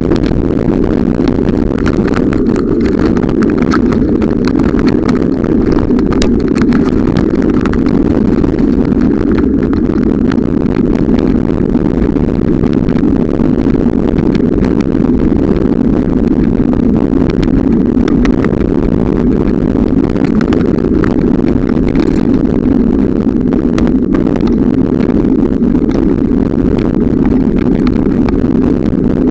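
Steady, loud rumbling wind noise on a camera microphone carried on a moving bicycle, with no change in level throughout.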